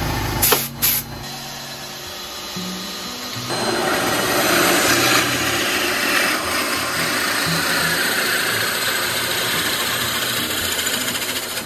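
Drill press boring into a wooden cup blank with a custom spurred wood bit reground from a metalworking twist drill. The rough, shredding cutting noise sets in about three and a half seconds in and runs on steadily. It follows a few sharp knocks about half a second in as the bit's taper shank is fitted into the spindle.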